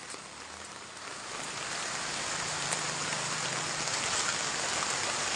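Steady rain falling on a wet, muddy road, swelling over the first two seconds and then holding even.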